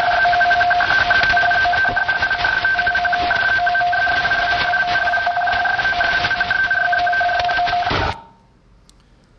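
Recorded shortwave radio teletype (RTTY) signal played over loudspeakers: a steady two-tone data signal over band hiss and static crackle, cutting off abruptly about eight seconds in.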